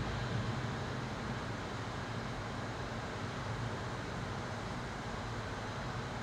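A steady low rumbling noise with a constant low hum underneath, even throughout, with no distinct events.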